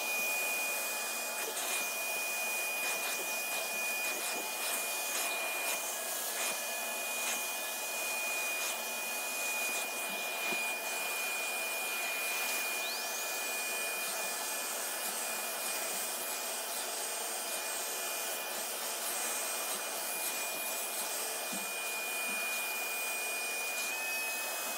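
Bissell wet-extraction upholstery cleaner running steadily, sucking dirty water out of velvet sofa cushions, with a steady high whine from its motor. A second, higher whistle rises in about halfway through and holds.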